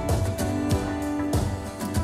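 Worship band playing a song's instrumental introduction: guitar with sustained notes over a steady beat.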